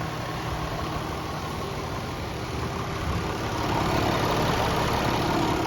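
An engine idling with a steady drone. It grows somewhat louder about three and a half seconds in.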